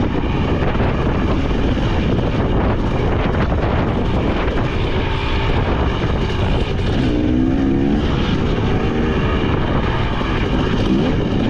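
A 2023 KTM 300 XC two-stroke dirt bike engine running while riding, its revs rising and falling, most plainly about seven seconds in and again near the end, with wind noise on the microphone.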